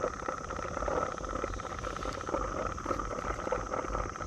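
Steady buzzing of an insect chorus, with faint irregular ticks over it.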